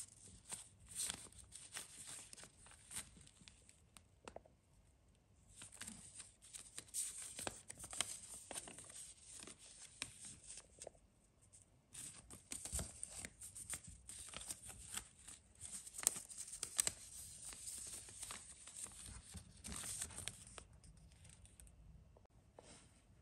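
Rustling and crinkling of a T-shirt and its packaging being handled in a cardboard box, in three stretches with short pauses about four and a half and eleven seconds in.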